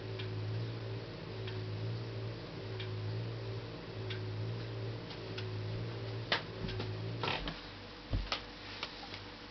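LG F12B8ND front-loading washing machine running with a steady motor hum and a faint click about once a second. This is the foreign clicking noise during spin that the owner places at the lower right of the machine: it comes with any load in the drum but not with the drum empty. Near the end the hum stops and there are a few louder knocks and clicks.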